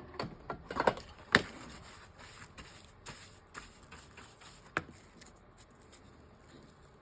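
Hands picking and peeling dried glue and loose paper off an old book's spine: dry scratching and rustling with a few sharp clicks, the loudest about a second in and another near five seconds.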